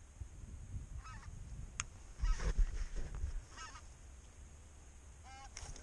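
Snow geese honking: a few short calls spread through, with a louder low rumble about two and a half seconds in.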